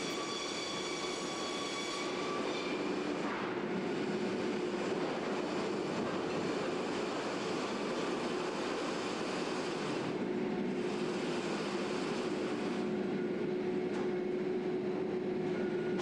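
Sawmill line machinery running: conveyors, chain transfers and roller decks making a steady mechanical din with a constant hum. A high whine sits on top for the first three seconds or so.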